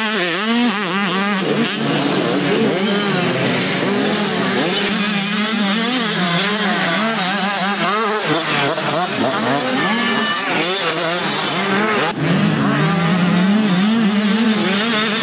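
Several motocross bikes racing on a dirt track, their engines revving up and down in overlapping, constantly shifting pitches as riders accelerate and back off.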